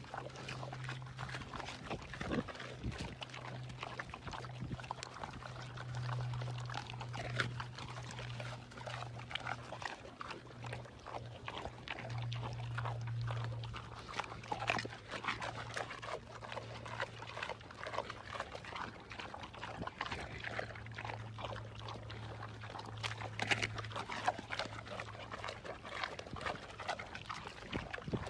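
A pig and a wild boar eating fruit: continuous wet chewing, crunching and smacking, with a steady low hum underneath.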